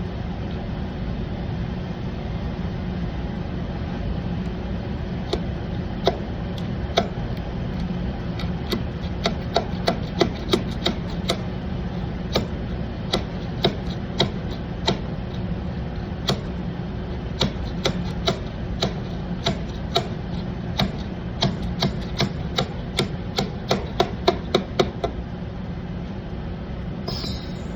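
Repeated sharp taps and knocks of hand-tool work on a bus's exterior panel brackets. They come irregularly, several a second at times, from about five seconds in until shortly before the end, over a steady low hum.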